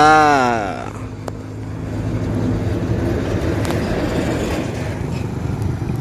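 A bus's telolet basuri horn sounds one sliding musical note that rises and falls during the first second. After that a bus engine runs with road noise.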